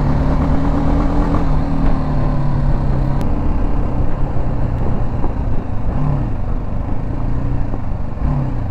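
BMW G310 GS's single-cylinder engine running at a steady cruise, its note easing down a little about a second and a half in, with wind rumble on the microphone.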